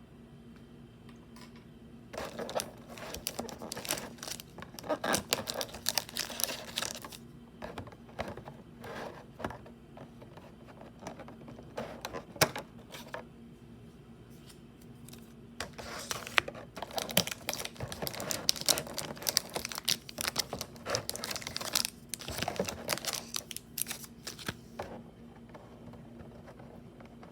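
Pokémon card packaging being torn and handled, with crinkly wrappers rustling in two long stretches and a few single sharp clicks between them. A faint steady low hum runs underneath.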